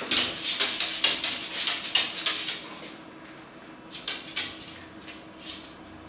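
A dog's claws scrabbling and clicking on the hard x-ray table as it is held and gets to its feet: a quick run of sharp scratchy clatters for about three seconds, then a few more scattered ones, over a steady low electrical hum.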